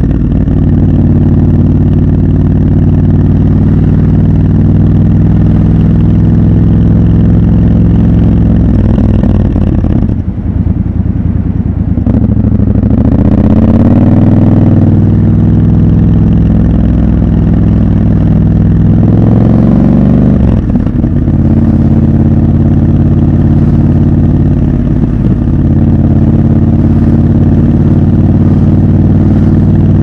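Triumph Scrambler 1200 XC's 1200 cc parallel-twin engine running steadily at road speed. The note drops away about ten seconds in, then rises in pitch as the bike accelerates. There is another short break near twenty seconds before it settles back to a steady run.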